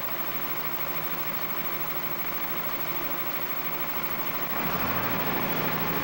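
Motor scraper's diesel engine idling steadily as it warms up. About four and a half seconds in the engine note grows a little louder and fuller.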